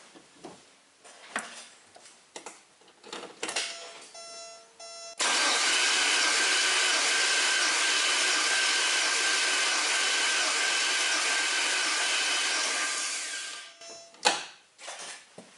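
Porsche 944's four-cylinder engine turned over by its starter motor with all spark plugs out and the fuel pump disabled, so it cranks without firing: a steady, even whir that starts abruptly about five seconds in and runs for about eight seconds while a compression gauge on one cylinder climbs to its peak. Just before it, a few short electronic tones; near the end, a couple of knocks.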